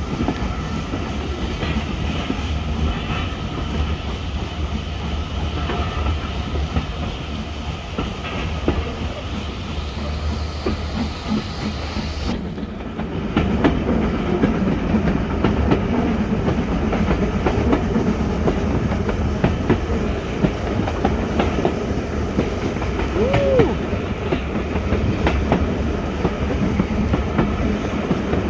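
Heritage railway carriage running along the track: a steady rumble of wheels on rails with clicks over the rail joints. About halfway through, the hiss fades and the rumble and clicking grow louder.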